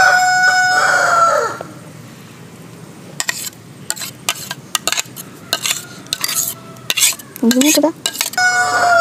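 A rooster crows twice: a held call tailing off about a second and a half in, and another near the end. In between, a spoon clicks and scrapes in a strainer as blended tomato puree is pressed through.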